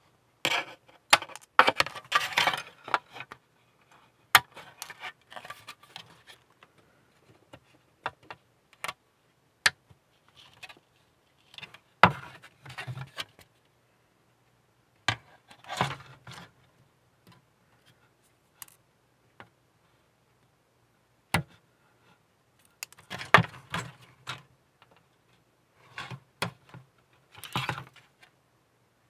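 Plastic-model side cutters (sprue nippers) snipping leftover gate nubs off a polystyrene hull part, single sharp snips every few seconds, between the rustle and clatter of the plastic hull being handled and turned.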